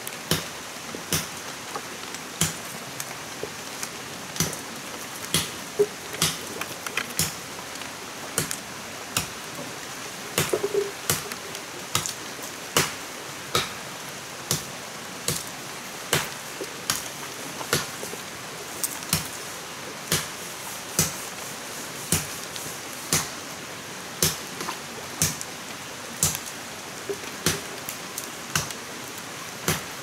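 Sharp blows struck at a steady pace of about one a second, over a constant hiss.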